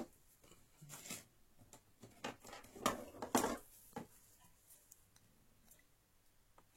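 Clicks and scraping of laptop parts being pushed and slid by hand inside an opened Toshiba Satellite M840, with a cluster of louder scrapes about three seconds in, then a few faint clicks.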